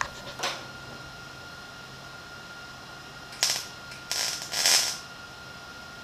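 Welder tack-welding patch metal onto the rusted windshield frame of a 1968 Chevrolet Biscayne, in short bursts of arc crackle: a brief one just after the start, another a little past three seconds, and a longer one around four to five seconds, over a steady hum.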